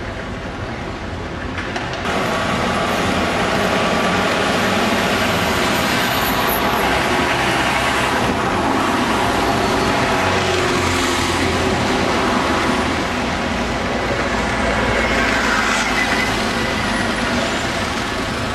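Heavy street traffic dominated by diesel double-decker bus engines running and road noise. It gets louder about two seconds in and stays steady after that.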